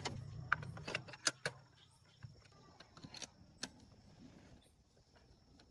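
Scattered sharp metallic clicks and clinks from metal parts being handled, most of them in the first two seconds, while a low mechanical hum fades away. A faint, steady high tone sits underneath.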